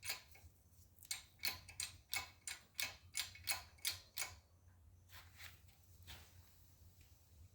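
A 12-ton hydraulic shop press being hand-pumped while pressing a wheel hub into a new wheel bearing: a run of sharp clicks about three a second, slowing to a few fainter clicks about halfway through.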